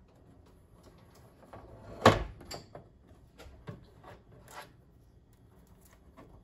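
A pinball topper set down onto the top of a pinball machine's backbox: one sharp clunk about two seconds in, followed by faint handling clicks and rustles.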